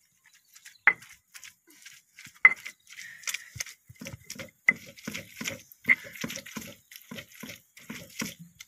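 Cooked fish flesh being squeezed and kneaded by hand in a stone mortar: wet squishing and pressing strokes with a few sharp clicks early on, settling into a regular rhythm of about three strokes a second from about halfway.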